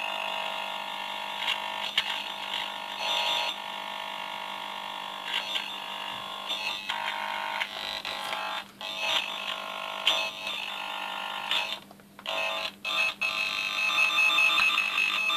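Cable tone-tracer probe buzzing with the signal from a tone generator as it is run along a multicore diagnostic cable to find a broken core. The buzz swells and fades, cuts out briefly a few times in the second half, and is strongest near the end, where the repairer puts the tone down to pickup from neighbouring wires.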